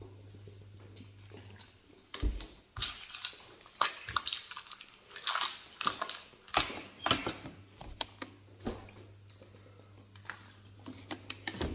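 A person chewing and smacking food close to the microphone, with irregular wet clicks and mouth noises between about two and nine seconds in.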